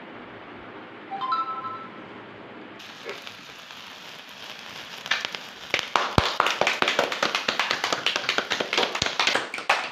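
Cake fountain sparkler candle burning with a hiss and rapid, irregular crackling pops, which turn dense and loud from about halfway through.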